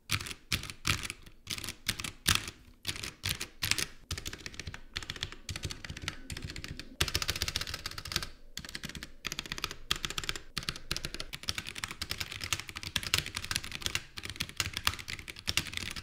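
Typing on a Drop ENTR tenkeyless mechanical keyboard with Halo True tactile switches: a fast, uneven stream of key clacks with a few short pauses, including spacebar presses about halfway through.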